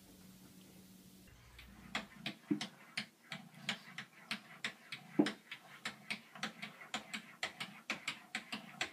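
A cat's front paws and claws tapping rapidly against mirror glass, about three taps a second, starting about two seconds in, with one louder knock near the middle.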